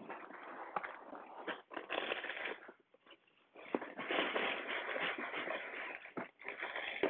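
A large cardboard Lego box being handled, turned over and slid on a wooden table: irregular rustling and scraping with small knocks, with a longer stretch of scraping about four seconds in.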